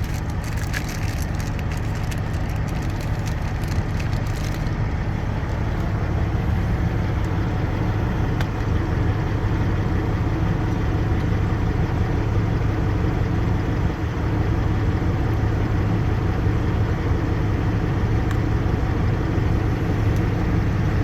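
Peterbilt truck's diesel engine idling steadily. Light clicks and rattles sound over it during the first four or five seconds.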